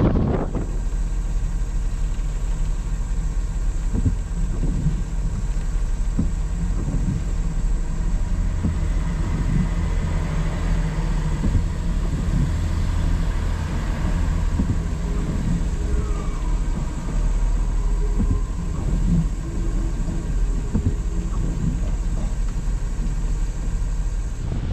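Car engine idling, a steady low hum heard from inside the cabin, while a diesel multiple-unit train passes close by.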